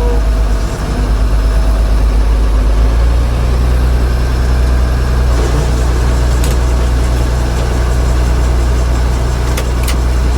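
Engine running steadily with a deep drone; its tone shifts a little about three seconds in, and a few sharp clicks come near the end.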